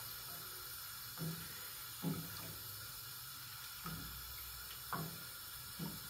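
Wooden spoon stirring sugar syrup in a stainless-steel pan, the liquid swishing in short strokes about once a second over a steady faint hiss. The syrup is not yet boiling.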